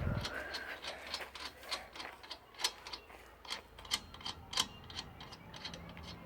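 A string of light, irregular metal clicks and ticks from tyre-changing tools being worked, like a jack or wheel wrench turning, about two to four clicks a second.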